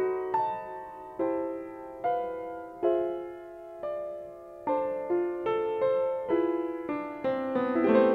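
Solo piano playing a slow, gentle melody, notes struck one at a time and left to ring. Near the end the playing grows fuller and louder, with more notes together.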